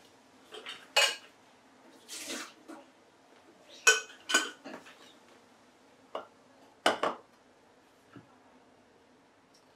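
Glass teapot and its tea infuser being handled and set down on the kitchen counter: a few sharp clinks and knocks, one about a second in, two around four seconds and two around seven seconds, with a short rushing sound a little after two seconds.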